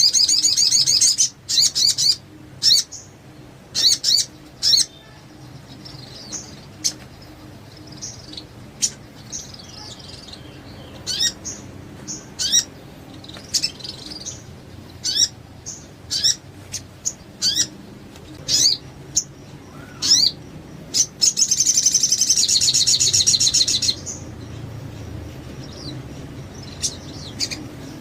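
A sogon songbird singing in full voice: a run of short, sharp, sweeping whistles and chips, with a fast buzzing trill at the very start and another lasting about two seconds near the end.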